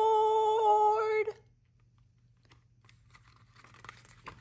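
A woman's voice holding a long, steady 'aboooard' at one pitch, calling 'all aboard' like a train conductor; it stops about a second and a half in. After it, only faint rustles and clicks.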